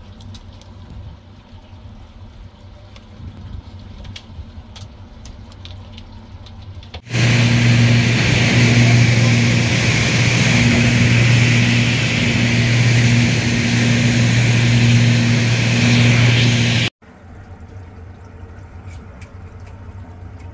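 A low engine rumble, then about seven seconds in a loud, steady aircraft engine drone heard from inside the cabin, with a deep hum and a faint pulsing tone above it. It cuts off abruptly about ten seconds later, and the quieter rumble returns.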